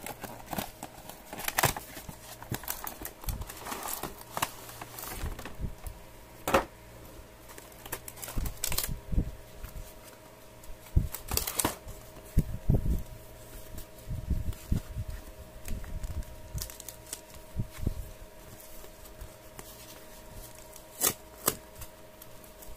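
Toy packaging being handled: a plastic bag and paper instruction sheets crinkling and rustling, with irregular taps and clicks, over a faint steady hum.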